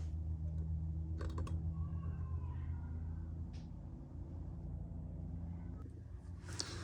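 A few light clicks and taps of metal engine parts being handled while the Suzuki LTZ 400's cylinder head is inspected, over a steady low hum; a small cluster of clicks comes about a second in, and more come near the end.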